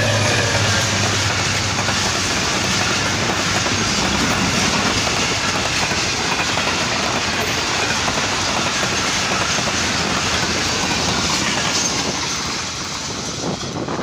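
Pakistan Railways express passenger train passing at speed close by: a steady, loud rush of coach wheels clattering over the rails. It eases near the end as the train draws away.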